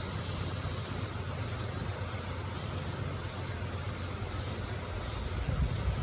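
Forest ambience: a steady low rumble under a continuous high-pitched whine, with faint short bird chirps now and then.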